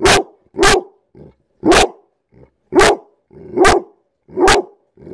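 Pit bull barking at close range: six loud, sharp barks roughly a second apart, with two softer ones between them. The barks are the dog demanding to be let outside.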